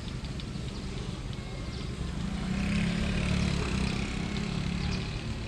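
An engine running steadily, growing louder about two seconds in and easing off near the end.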